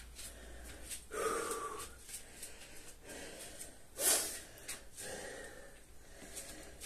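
A man breathing hard after burpees: heavy, noisy exhales and intakes every second or two, the loudest a sharp breath about four seconds in.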